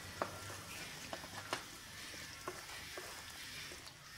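Pepper chicken in a pan, cooked through, sizzling steadily while it is stirred, with a spoon clicking against the pan about eight times.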